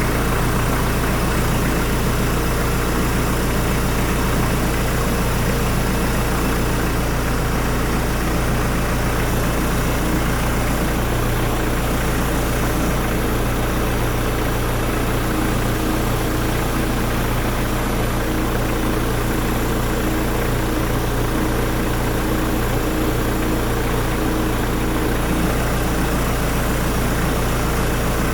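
Hyundai D4BH 2.5-litre four-cylinder turbodiesel idling steadily during an oil pressure check.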